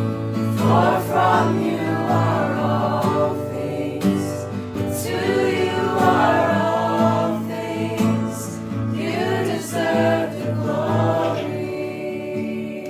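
Christian worship music: a choir singing three phrases with short breaks between them, over a sustained instrumental accompaniment.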